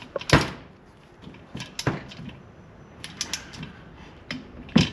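Scattered sharp metal clicks and clacks from a ratchet torque wrench and socket working the cylinder head bolts of a Royal Enfield 650 twin, with a louder click about a third of a second in and another near the end.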